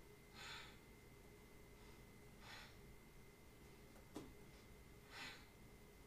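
Faint, forceful breaths of a woman exercising in plank, three short exhales about two and a half seconds apart, with a single light tap about four seconds in.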